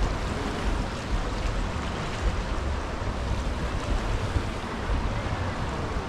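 Ocean surf washing up a beach, a steady rush of breaking waves, with wind buffeting the microphone.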